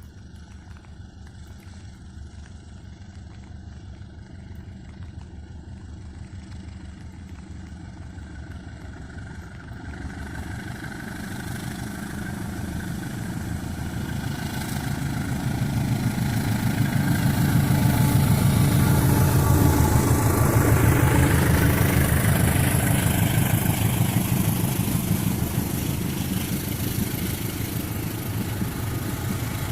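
Diesel passenger train approaching, its engine and wheel noise growing steadily louder for about eighteen seconds, then staying loud as it goes by.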